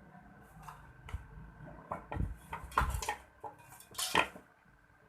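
Scattered light metallic clinks and knocks from an opened electric clothes iron and its parts being handled on a work surface, about half a dozen separate strikes.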